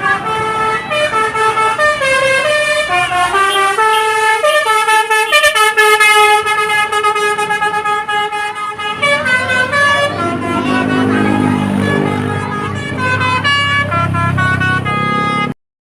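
Bus telolet horn of the basuri type, a multi-tone musical air horn playing a quick melody of stepping notes, with one long held note in the middle. In the second half a bus engine rumbles underneath as more horn notes sound; the sound cuts off suddenly near the end.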